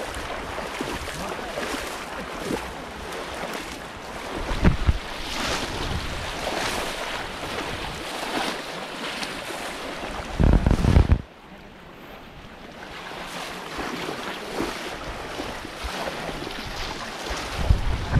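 Shallow muddy water splashing and sloshing as many people wade through it with bamboo polo fish traps. A loud buffeting of wind on the microphone comes about ten seconds in and cuts off suddenly.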